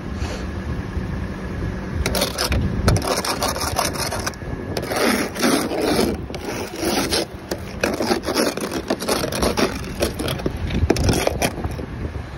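Ice being scraped and brushed off a car coated in glaze from freezing rain, in a run of irregular rasping strokes starting about two seconds in, over the low hum of the car running with its heater on full.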